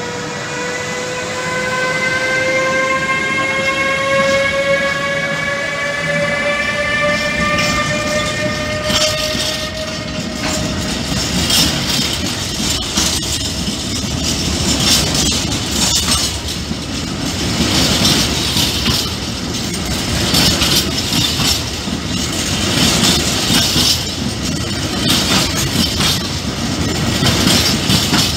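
Siemens Vectron electric locomotive's traction motors whining, the whine slowly rising in pitch for about the first ten seconds as the freight train gathers speed, then fading. A string of hopper wagons rolls past with wheels clicking and clacking over rail joints.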